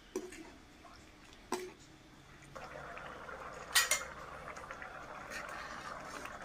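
A metal ladle clinks against the aluminium pot as it stirs coconut cream and green curry paste, with the loudest knock a little before four seconds in. From about two and a half seconds in, the cream bubbles and sizzles steadily as it boils down until its oil separates.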